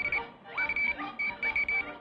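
Cartoon soundtrack of quick, uneven runs of short high electronic-sounding beeps at one pitch, mixed with short upward-sliding whistles.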